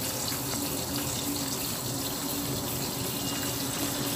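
Kitchen tap running steadily, the stream of water falling onto broccoli florets in a stainless steel colander in a steel sink as they are rinsed.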